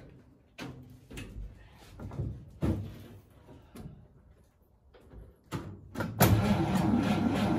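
A few scattered knocks and clunks, then about six seconds in the 1953 Chevy truck's straight-six engine catches and runs steadily on its newly fitted fuel pump and fuel system.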